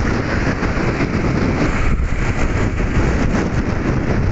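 Motorcycle ride noise at steady speed: a loud, even rush of wind and engine and road noise on the rider's microphone, with no distinct engine note standing out.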